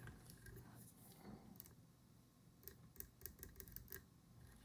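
Faint ticks and light scrapes of multimeter probe tips on a circuit board, with a quick run of small clicks a little past halfway, as the probes fail to make contact through the board's coating.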